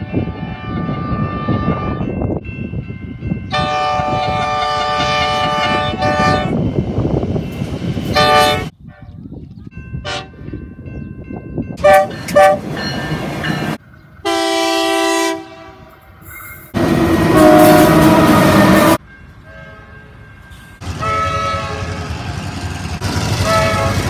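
Train horns sounding in a run of separate blasts, long and short, each a chord of several tones, with the loudest long blast about two-thirds of the way through and two quick toots around the middle. Passing trains rumble beneath several of them.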